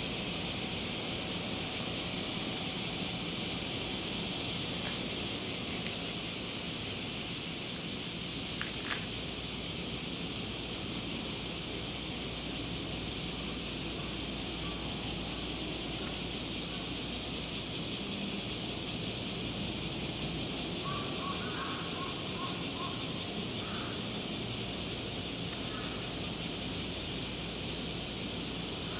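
Insects trilling in a steady high hiss, with a rapid even pulsing chirr joining in about halfway through. A faint low hum of the surroundings sits underneath.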